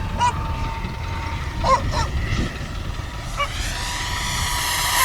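Electric ducted fan of an RC model jet (a 3D-printed Cessna A-37 DragonFly) whining steadily in the air, then growing louder over the last second and a half as it approaches. A few short chirps and low wind rumble sit underneath.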